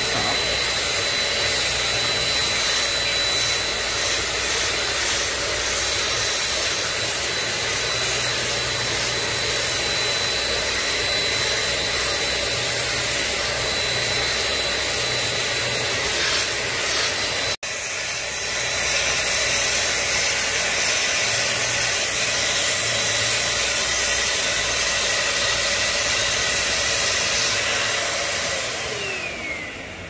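Eureka Forbes 800-watt handheld vacuum cleaner running steadily with a high motor whine, its nozzle held against an air purifier's grille. There is an instant's break about two-thirds of the way in, and near the end the motor is switched off and winds down.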